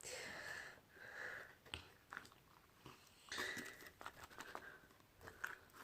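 Wet slime being squished and kneaded in the hands: faint, irregular sticky squelches with small clicking pops.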